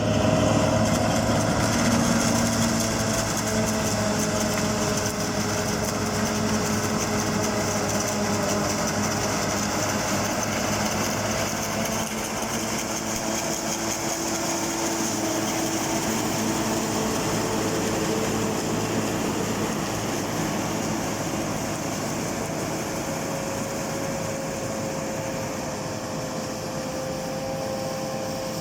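Silage harvester running steadily during a test: engine and machinery noise with a high hiss, the engine's pitch wandering slightly and the whole sound easing off a little toward the end.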